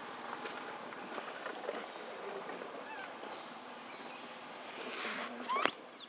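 A steady high-pitched insect drone over outdoor ambience, with a short sharp chirp sweeping up and back down near the end.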